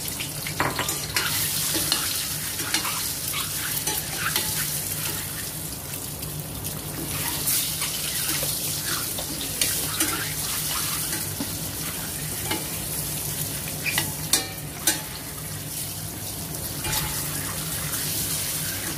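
Peeled boiled eggs sizzling in hot oil and spice powder in a stainless steel frying pan, a steady hiss. A spoon clinks and scrapes against the pan now and then as the eggs are turned, with a few sharper knocks a little after the middle.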